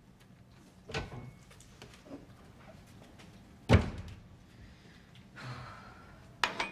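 A few household knocks in a kitchen as a door is opened and shut and crockery is handled: a soft knock about a second in, a sharp loud knock a little under four seconds in, a brief rustle, and another knock near the end.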